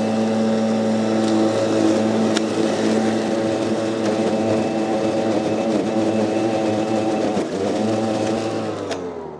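Stihl battery lawnmower's electric motor and blade running with a steady whine as it cuts through long, tufty grass, the pitch sagging briefly under load about three-quarters of the way through. Near the end the motor is switched off and spins down, the whine falling in pitch and fading.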